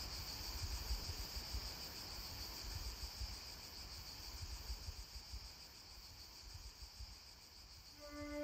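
Crickets chirping steadily, with a faint low rumble underneath. Sustained music notes come in near the end.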